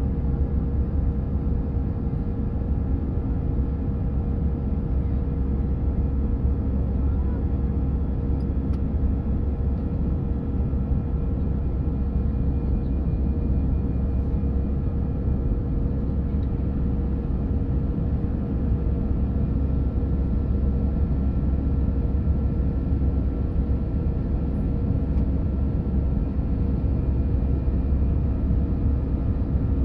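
Airbus A319 cabin noise in the climb after take-off, heard from a window seat over the wing: the jet engines and rushing air make a steady, loud, deep roar, with a constant hum of several steady tones from the engines.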